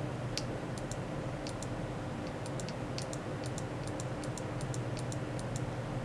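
Computer mouse button clicked repeatedly: a series of sharp clicks, many in close press-and-release pairs, over a steady low hum.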